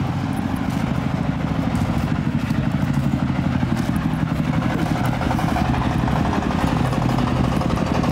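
Motor vehicle engine running steadily, a continuous low hum with a fine regular pulse.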